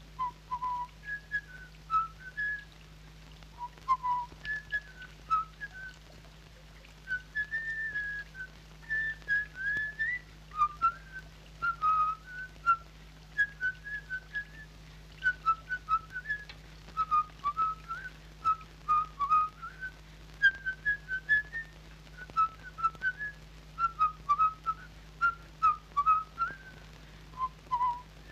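A person whistling a tune: a long run of short notes that glide and step up and down in pitch.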